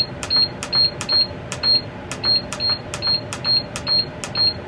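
Digital control panel of a countertop electric smoker beeping with each button press as the cooking timer is set, about three short high beeps a second, each with a button click.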